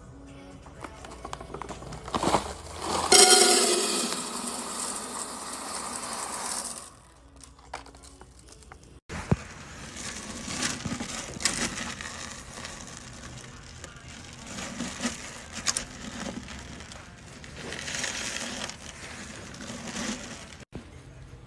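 Hard film wax beads in their plastic bag and in a metal wax warmer pot, stirred with a wooden spatula: crinkling and a clicking, crunching rattle. It is loudest in a rush about three seconds in.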